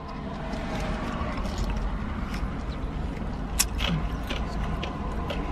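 Steady low rumble of a parked car running, heard from inside the cabin, with a few light clicks about three and a half seconds in.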